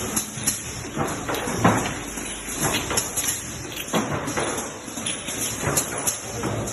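Automatic perfume filling machine running: irregular mechanical clacks and knocks, roughly one every half second to a second, over a steady hiss.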